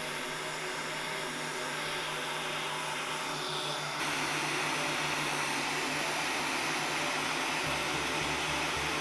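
Heat gun running, blowing a steady rush of hot air with a low motor hum as it shrinks a heat-shrink sleeve onto a rock core sample; the rush gets louder about four seconds in.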